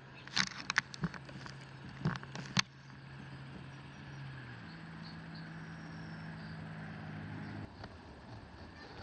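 Sharp plastic clicks and snaps from handling the tool set's packaging and hard case, bunched in the first three seconds. Under them is a steady low mechanical hum that steps up in pitch about halfway through and stops about a second before the end.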